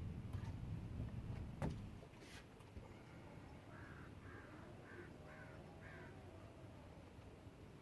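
A bird calling outdoors: five short calls in a row, about half a second apart, starting about four seconds in. Before that there is a low rumble and a single sharp click.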